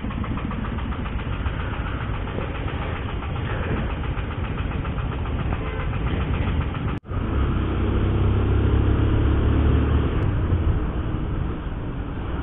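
Motorcycle engine running at low speed among city traffic, with faint rhythmic ticking. After a brief dropout about seven seconds in, the engine gets louder and deeper as the bike pulls away.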